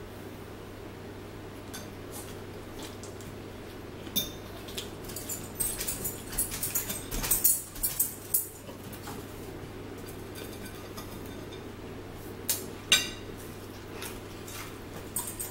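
Metal forks clinking and tapping on plates during a meal: scattered sharp clicks, bunched about four to nine seconds in and with two louder ones near thirteen seconds, over a steady low hum.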